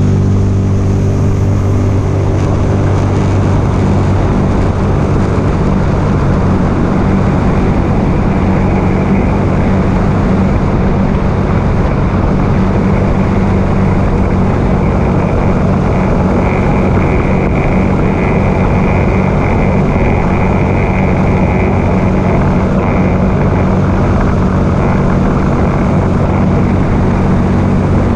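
Sea-Doo Spark personal watercraft's three-cylinder Rotax engine running at a steady speed while underway, over a steady hiss of rushing water and wind. A high whine comes in about a third of the way through and is strongest around the middle.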